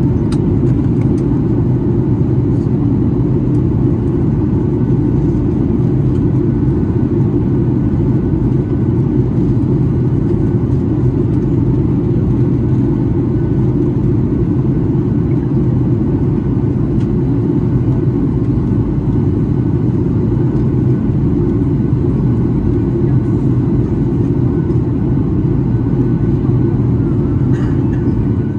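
Steady low drone inside the cabin of a Boeing 737-800 in flight: the noise of its CFM56 turbofan engines and the airflow over the fuselage, heard from a window seat, unchanging throughout.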